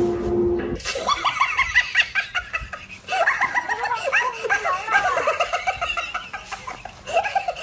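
High-pitched laughter in a quick run of short, rising laughs, starting about a second in.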